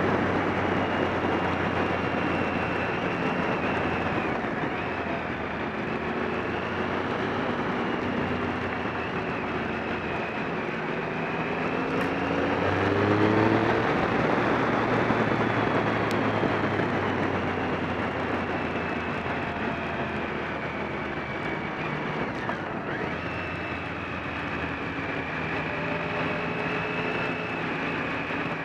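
Motorcycle riding at speed, heard from a camera mounted on the bike: heavy wind rush on the microphone over the engine note, which rises and falls with the throttle and climbs about halfway through.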